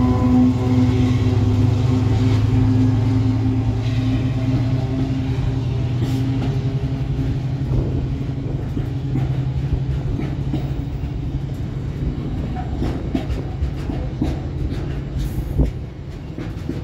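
A Freightliner Class 70 diesel locomotive, GE PowerHaul V16, hauling a container freight train past at close range. Its loud engine drone fades over the first several seconds as it pulls away, leaving the container wagons rumbling and clacking over the rail joints.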